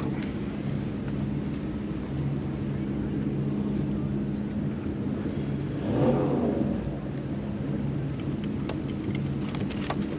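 A boat engine runs with a steady low hum under wind and water noise, with a brief louder swell about six seconds in.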